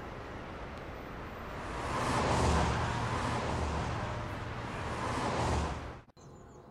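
A car driving past on a street: tyre and engine noise swells about two seconds in and holds with a second rise, then cuts off abruptly about six seconds in, leaving faint room tone.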